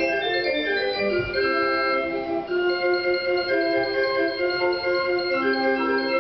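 Organ being played: several notes held at once with a quicker-moving line of shorter notes above them, and a lower note held near the end.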